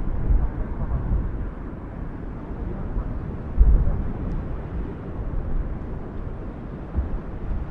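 Cumbre Vieja volcano erupting: a continuous low rumble, with a sudden louder jolt about three and a half seconds in and a smaller one near the end.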